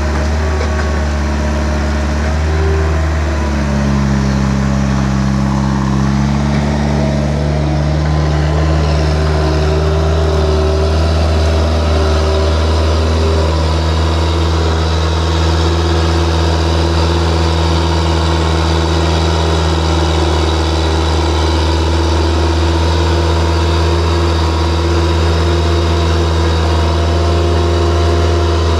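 Vehicle engine running steadily close up, with a deep hum; its pitch shifts briefly a few seconds in.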